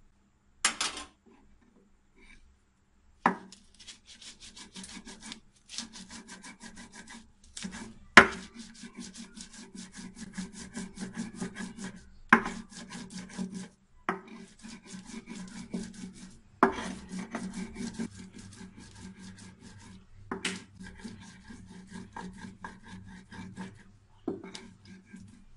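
Stone muller (batta) rubbed back and forth on a flat grinding stone (sil), grinding fresh mint, green chillies and salt into chutney. It makes quick, rhythmic gritty scraping strokes in runs of a few seconds with short pauses between, and a sharp knock of stone on stone as several of the runs begin.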